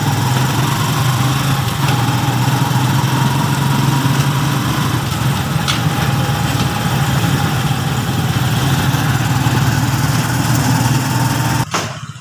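Motorcycle engine of a tricycle running steadily, heard from its sidecar: a low, even hum with road and engine noise over it. It cuts off suddenly near the end.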